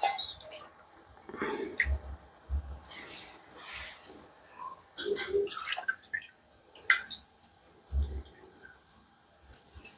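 Water poured by the cupful into a cooking pot of chopped greens, in several separate pours, with sharp clinks of the cup against the pot.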